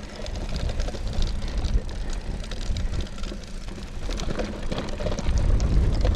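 Hardtail mountain bike rolling over a gravel track: tyre noise with scattered small clicks and rattles from stones and the bike, over a low wind rumble on the microphone that grows louder near the end.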